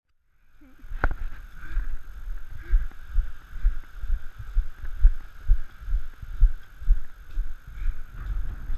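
Footsteps thudding at a walking pace, about two a second, picked up by a body-worn action camera, over a steady high hum; a single sharp click about a second in.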